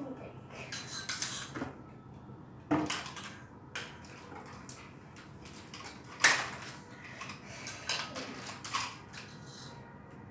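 Irregular hard-plastic clicks, taps and knocks as a plastic toy robot dog and its remote are handled on a tiled floor, the loudest knock about six seconds in.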